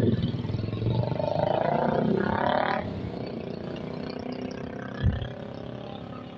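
Road traffic: a passing vehicle's engine, its pitch rising about two seconds in, then fading to a steady traffic hum. A short low thump about five seconds in.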